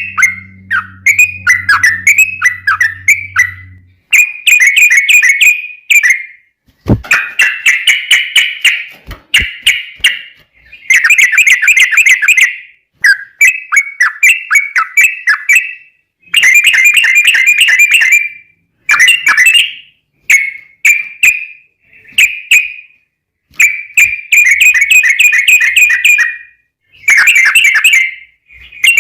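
Yellow-vented bulbul (trucuk) singing long runs of rapid, bubbly chattering notes, phrase after phrase with short pauses between them.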